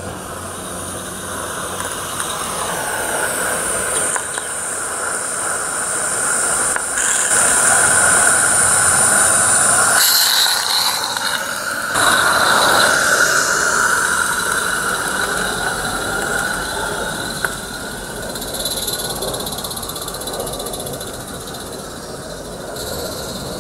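Roundhouse 'Dylan' garden-railway live steam locomotive running light along the track, a continuous running noise with steady high tones. It grows louder over the first several seconds and fades again after the middle.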